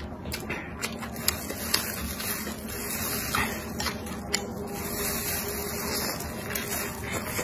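Eating sounds: wet chewing and smacking, and bites into a large wrapped roll of noodles and bean sprouts, with the rustle of a plastic glove. Scattered sharp clicks and smacks stand out over a steady hiss.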